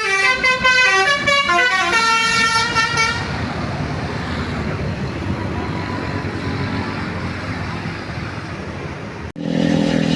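Bus 'basuri' telolet horn playing a quick melody of stepping notes for about three seconds, followed by road traffic noise. Near the end, after a cut, a steady low drone.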